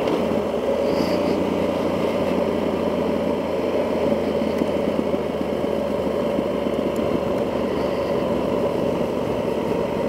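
Yamaha XT1200Z Super Tenere's parallel-twin engine running at a steady cruise, mixed with wind rush, heard from a mic inside the rider's helmet.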